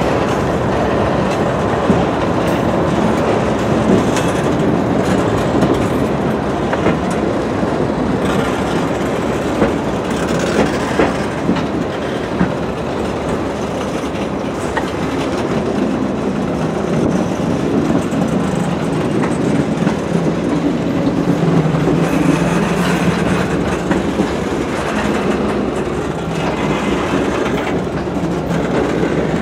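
Freight train tank cars rolling past, steel wheels clicking and clacking over the rail joints over a steady rumble.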